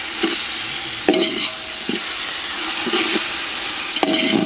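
Onions and tomato paste sizzling in a cooking pot as they are stirred, the ladle scraping and knocking against the pot about five times, two of the knocks ringing briefly.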